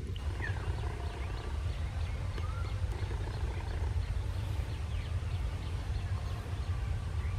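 Birds chirping and calling repeatedly in short whistles, over a steady low rumble from a distant diesel locomotive approaching.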